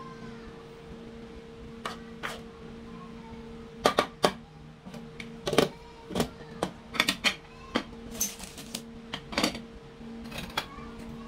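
Serving spoon, metal pot and plastic bowl clinking and knocking as cooked rice is dished out, a string of sharp separate clicks, loudest about four and five and a half seconds in. A steady low hum runs underneath.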